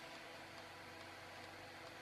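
Faint steady hiss with a low hum: quiet room tone, with no distinct sound events.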